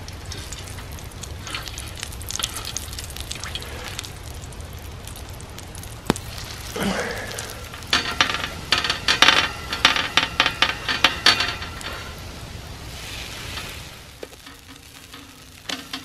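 Pancake batter sizzling in oil on a griddle over a campfire, with a metal utensil scraping and tapping on the griddle as the pancakes are flipped. The scraping comes in a quick run just past the middle.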